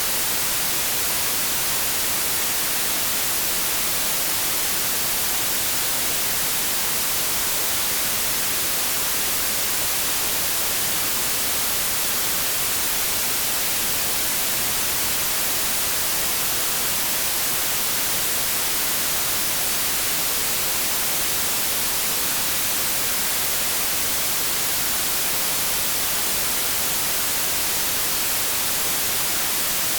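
Continuous white noise: a steady, even hiss that never changes in level.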